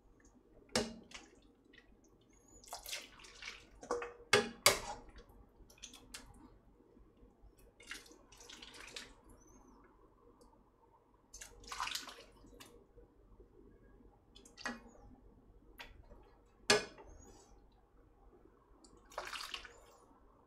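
Samgyetang broth being ladled into a bowl: a series of short pours and splashes, with a few sharp knocks of the ladle or dish, the loudest about four and a half seconds in and again near the end.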